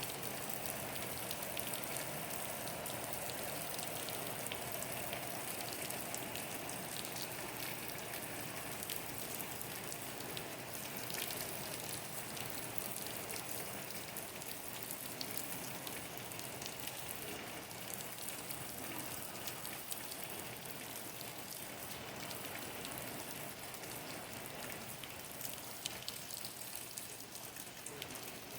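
Steady rain falling, a dense hiss with many small drop patters, easing slightly toward the end.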